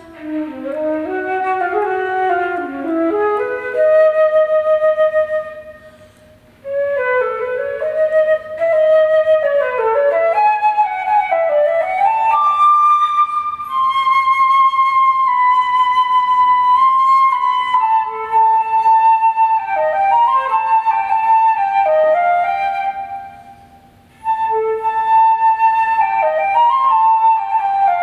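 Unaccompanied concert flute playing a solo melody, one line moving from low notes up to longer held higher notes in the middle. It plays in phrases, with two short breaks for breath, about a quarter of the way in and again past three-quarters.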